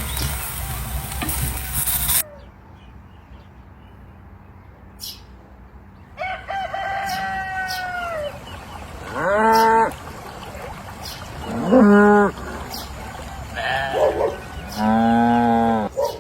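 Steady vehicle noise cuts off about two seconds in. It is followed by several separate calls from farm animals, each up to about a second long; the loudest and longest comes near the end.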